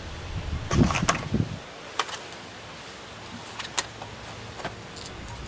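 Hands handling a USB charging cable and plastic plugs: a cluster of knocks and rustles about a second in, the loudest part, then a few sharp separate clicks.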